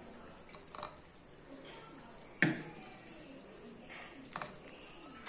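Thick tamarind curry being ladled into a steel bowl: faint wet drips and plops, with a few small taps and one sharp metal clink about halfway through.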